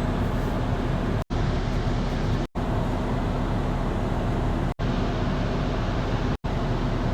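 Volvo engine idling with a steady hum; the scan later reports random misfires on cylinders 1, 2 and 3. The sound cuts out abruptly to silence for a split second four times.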